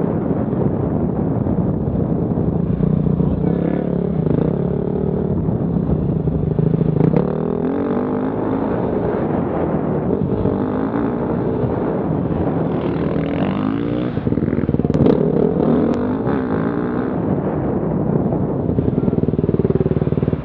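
Enduro motorcycle engine running at low revs, close up, with several short rises and falls in pitch as the throttle is opened and closed.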